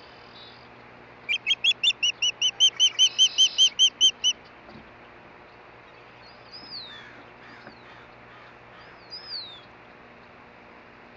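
An osprey calling a rapid series of about fifteen high, whistled chirps, about five a second, for some three seconds. Later come two or three faint, short falling whistles.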